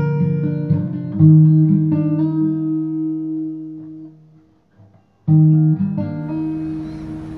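Background guitar music: picked notes and a held chord that fades out, a short break about four and a half seconds in, then the playing starts again.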